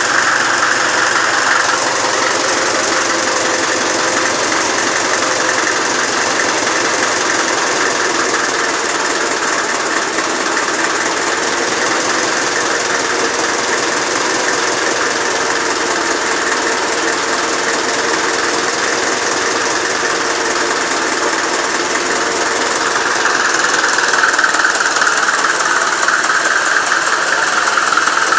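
Multi-cylinder diesel engine with a mechanical injection pump running steadily at constant speed, restarted after its system was cleaned and reconnected.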